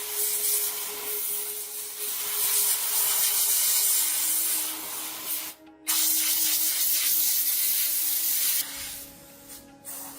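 Pressurised spray hissing in two long bursts, the second starting after a short break and cutting off sharply.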